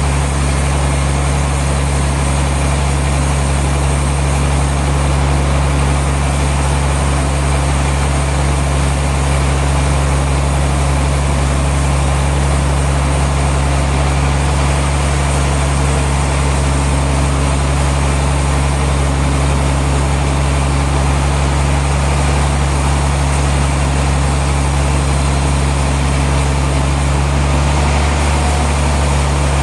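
Sawmill machinery running steadily: a loud, constant low hum that does not change.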